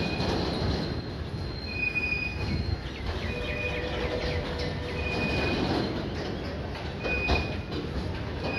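Open goods wagons of a freight train rolling slowly past, their wheels giving short high-pitched squeals about every second and a half over a steady rumble, with one sharp clank about seven seconds in.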